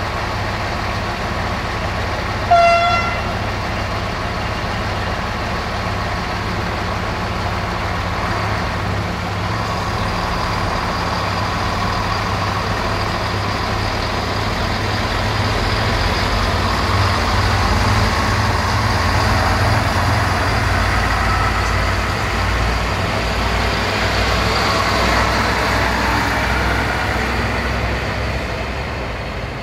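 Diesel engines of a shunting locomotive and a Desiro diesel multiple unit running with a steady low rumble that grows louder in the middle. About three seconds in, a short, high horn toot sounds once, the loudest moment.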